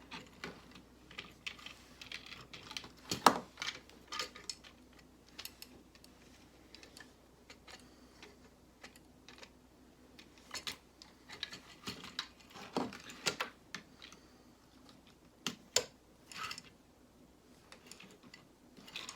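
Plastic Lego bricks clicking and rattling as they are handled and pressed together, in irregular small clicks, with a sharper knock about three seconds in.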